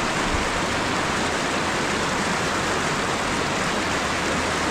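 Steady rush of flowing creek water, an even, unbroken wash of noise.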